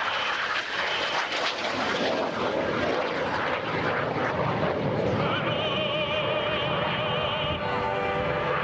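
Aermacchi MB-339 jet trainers flying in a close ten-ship formation, their jet noise strongest through the first five seconds or so. From about five seconds in, an operatic voice singing with heavy vibrato rises over the fading jet sound.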